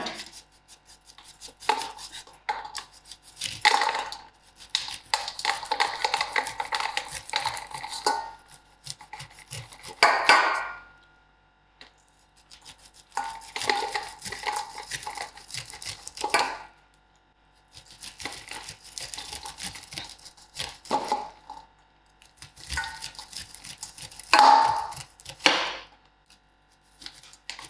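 A knife cutting kernels off fresh mielie (white corn) cobs, scraping down the cob, with the kernels dropping into a stainless steel bowl. The scraping comes in runs of a few seconds with short pauses between them.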